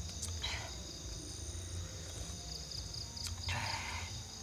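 Crickets and other night insects trilling steadily in a high, pulsing chorus over a low rumble, with two short hissing noises, one about half a second in and one around three and a half seconds.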